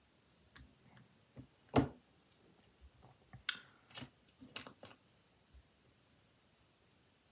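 Scattered short clicks and snips from small fly-tying tools and wire being handled at the vise, about half a dozen in the first five seconds with the loudest near two seconds in.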